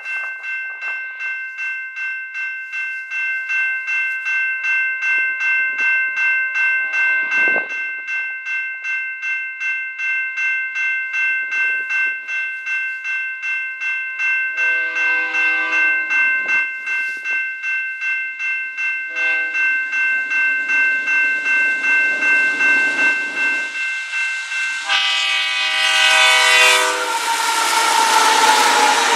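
Railroad grade-crossing bell ringing steadily at about three strokes a second while an approaching CP freight's lead GE AC4400CW locomotive sounds its horn for the crossing in several blasts, each louder as it nears. Near the end the locomotives pass close by, and the rumble of the diesels and the train rises over the last loud horn blast.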